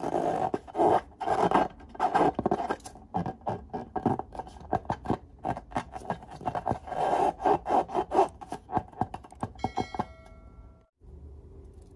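Hands rubbing and squeezing a filled latex balloon: a run of uneven squeaky rubbing strokes of fingers on the rubber. Near the end comes a short ringing chime with a few clicks, then a faint steady hum.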